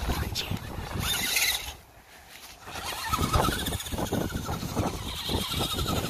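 Redcat Gen7 RC crawler's electric drive motor and geared drivetrain whining as it drives across mud. From about three seconds in, the pitch rises and falls with the throttle, over a low crunching from the tyres.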